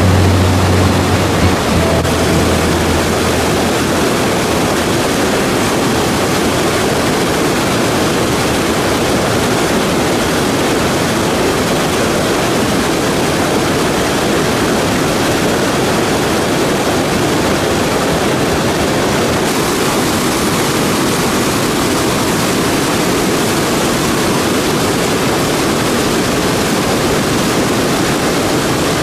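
River rapids rushing steadily over rock slabs: a loud, even sound of white water. A low hum fades out over the first few seconds.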